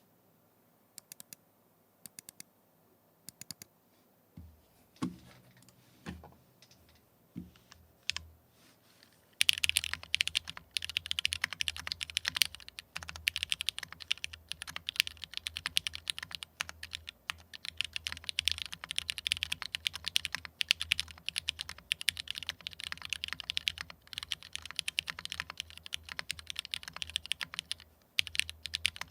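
Mechanical keyboard with lubed Cherry Nixie switches on a brass plate and ABS keycaps: a few scattered keypresses, then a handful of heavier, deeper strokes, then fast continuous typing from about nine seconds in.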